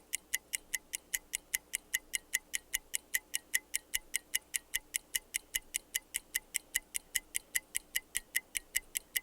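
Rapid, evenly spaced ticking, about five ticks a second, of a microwave oven's timer counting down, over a faint steady hum.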